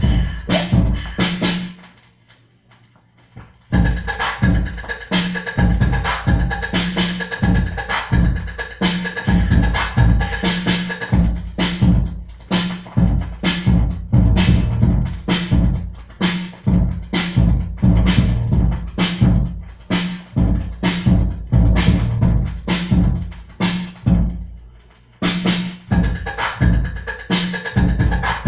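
Funk melody (Brazilian funk) music in a DJ mix with a steady drum-machine beat. The beat drops out briefly about two seconds in and again near the end, then comes back in.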